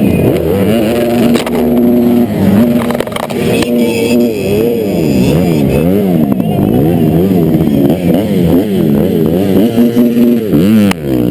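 85 cc two-stroke motocross engines revving up and down again and again, heard through a helmet or bike camera that has fallen onto the dirt track.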